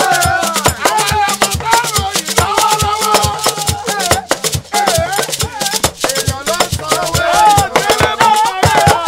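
A chorus of men singing a Yoruba praise song together, with talking drums and rattling percussion keeping a fast, steady beat.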